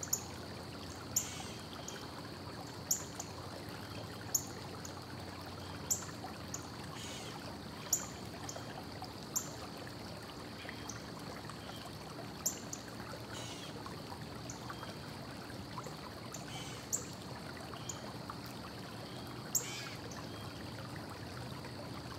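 Faint, sharp metallic clicks and taps, about one every second or two at irregular spacing, from small 10-32 bolts and K-nuts being fastened by hand on a steel angle-iron frame and wire-mesh panel. A low steady hum lies underneath.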